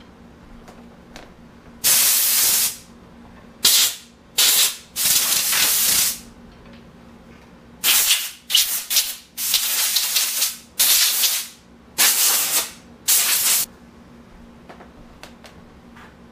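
A series of about eleven loud bursts of hiss, each from a fraction of a second to about a second long, separated by short gaps and ending a couple of seconds before the end.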